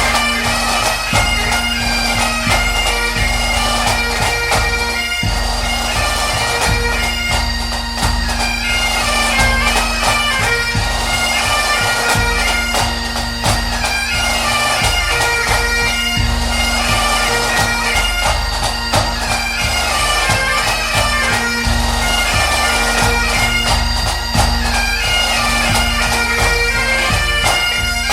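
Bagpipe music: a steady drone under a moving melody.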